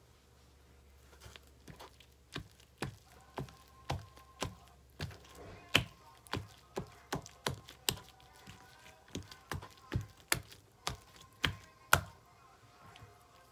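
Soapy slime being stretched and folded by hand, giving sharp wet clicks and pops about twice a second, which start about a second in and stop near the end.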